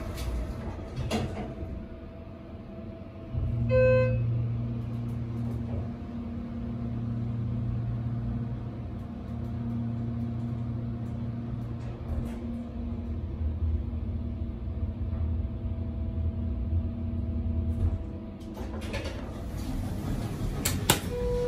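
Schindler 330A hydraulic elevator's pump motor starting about three seconds in and running with a steady low hum as the car rises one floor, then stopping about fifteen seconds later. A short beep sounds just after the motor starts, and a click comes near the end.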